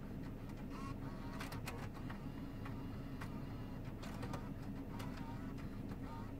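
Steady low hum inside a parked car with the ignition on, with scattered faint clicks and short chirps.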